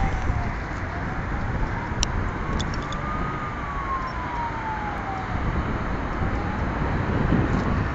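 An emergency-vehicle siren wailing in a slow rise and fall, about one cycle every four to five seconds, over a steady rumble of city traffic and wind on the microphone.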